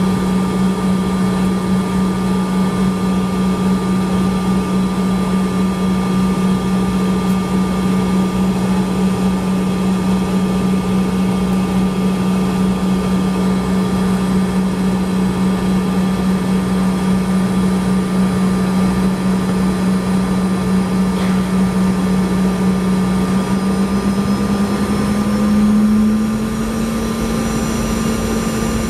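CRJ-200 engine noise heard from inside the cabin while taxiing. Its rear-mounted GE CF34 turbofans make a steady low drone with a faint high whine. Near the end the drone rises slightly in pitch and briefly gets louder.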